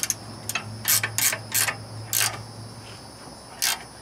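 Ratchet wrench clicking in short, irregular strokes, a string of sharp clicks with one more near the end, as the nut on a new tie rod end is worked to line up the cotter-pin hole.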